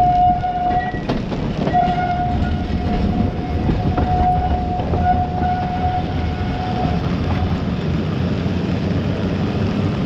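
Cable-hauled tram on the Great Orme Tramway rolling past, with a steady low rumble of the running gear and the haul cable over its track pulleys. A high-pitched squeal holds for about seven seconds and then stops, with a few clicks in the first two seconds.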